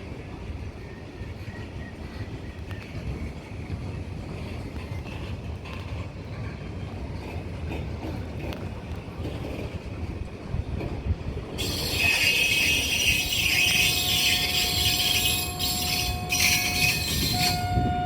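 An Indian Railways train approaching with a low rumble that slowly builds. About twelve seconds in, its wheels break into a loud, high-pitched squeal against the rails as it passes, with a steady squealing tone held near the end.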